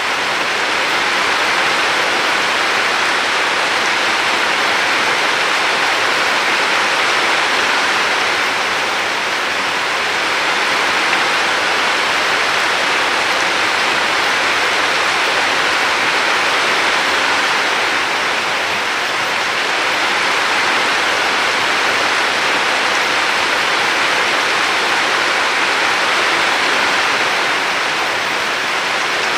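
River water flowing in a steady rushing hiss that swells and eases slowly every ten seconds or so.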